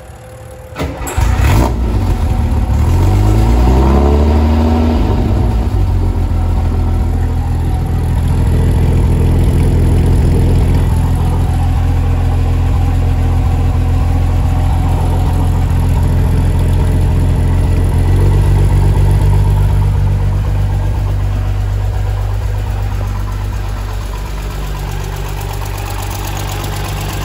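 Cold start of a 1960 Maserati 3500 GT's 3.5-litre twin-plug inline six with triple Weber carburettors, heard at the exhaust. It cranks briefly, catches about a second and a half in and revs up, then settles into a steady fast idle that eases slightly near the end.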